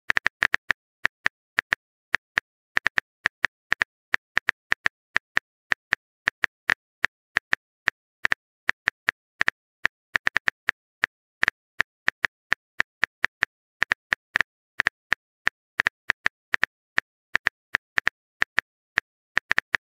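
Texting Story app's keyboard click sound effect as a text message is typed out, one short sharp click per key. The clicks come several times a second at an uneven pace.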